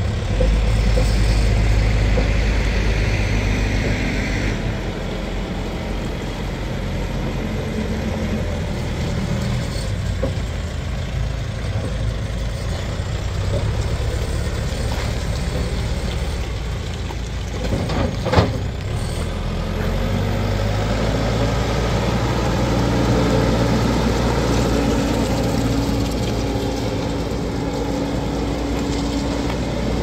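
2001 CAT 432D backhoe loader's diesel engine running steadily as the machine drives about. One sharp knock stands out about two-thirds of the way through.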